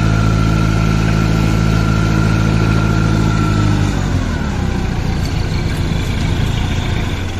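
Truck engine sound idling steadily, with a thin high whine over the low engine note. About four seconds in, the engine note drops and turns rougher, as if winding down.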